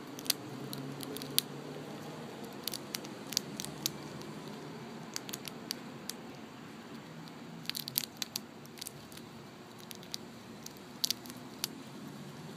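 Eastern chipmunk gnawing open a peanut shell held in its paws: small sharp cracks and crunches that come in irregular clusters every second or two, over a faint steady background hum.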